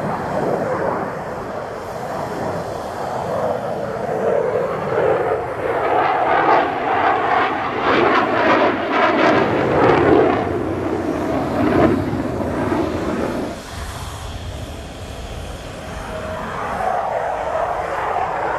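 Single-engine HAL Tejas fighter's jet engine heard in flight. It grows louder toward the middle, drops off abruptly about two-thirds of the way in, then builds again near the end.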